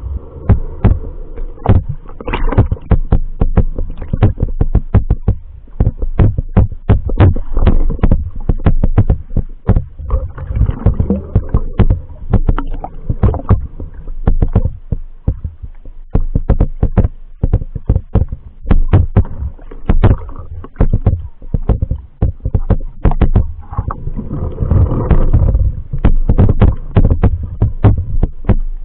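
Muffled underwater sound picked up through an action camera's waterproof housing: water moving around the camera with a rapid, uneven run of knocks and clicks over a low rumble.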